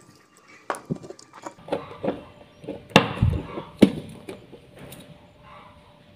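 Irregular knocks and taps from a tegek fishing pole being handled and turned in the hands against a table, the two loudest about three and four seconds in.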